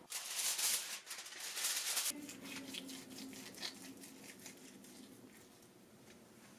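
Knife and carving fork cutting into a freshly roasted whole chicken, with crisp skin crackling and the blade scraping. A louder crackling hiss fills the first two seconds and stops abruptly; after it come fainter scratchy clicks over a low hum.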